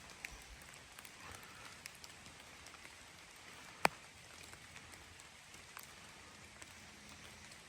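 Rain falling: a steady faint hiss of rain with many small scattered drop ticks. One sharp, much louder tick stands out about four seconds in.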